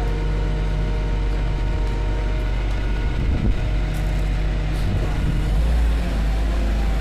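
Engine of a boat hoist running steadily under load as the slings take up a sailboat, a constant low drone.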